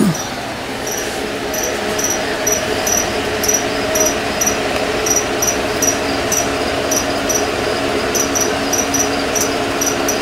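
Short high-pitched chirps repeating about two or three times a second, over a constant hum. A brief knock comes right at the start.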